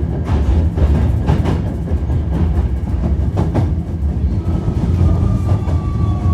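Hankyu 1300 series train running, heard from inside the car: a steady low rumble of wheels on rail with irregular clacks over rail joints. About four seconds in, a thin high whine from the Toyo IGBT inverter sets in and sags slightly in pitch.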